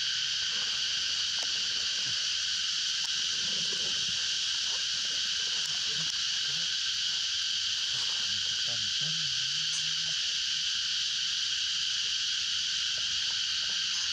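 Steady, high-pitched drone of an insect chorus that never lets up.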